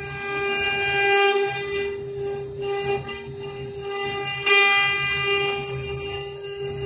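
Four-spindle 1325 CNC wood router carving a wooden panel: the spindles give a steady high whine, with two surges of hissing cutting noise as the bits bite into the wood.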